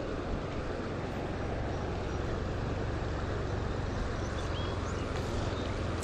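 Steady rushing of flowing creek water, mixed with wind on the microphone.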